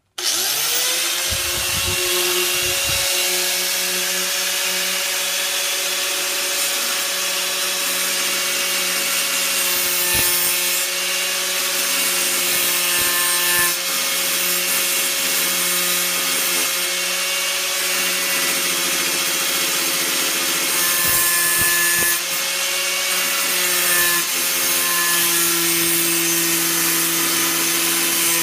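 Hyper Tough angle grinder with a cutting wheel switched on and quickly spinning up, then grinding steadily through the thick steel of a nail-puller claw bar: a constant motor whine over a loud cutting hiss, with a brief dip about 22 seconds in.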